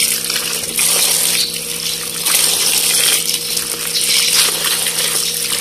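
Running water pouring over eggplants in a plastic basket as a hand rubs and turns them, the splashing swelling and dipping. A steady low hum runs underneath.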